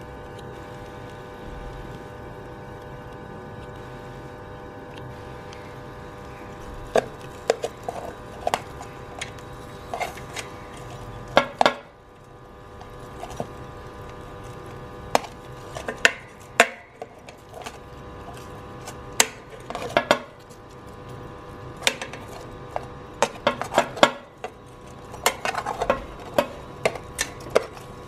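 Metal spoon clinking and scraping against the metal pizza pan among the chicken pieces, in irregular taps from about seven seconds in, over a steady hum.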